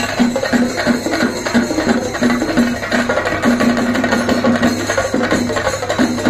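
Percussion music: drums beating a fast, even rhythm of about three or four strokes a second, with a steady low hum underneath.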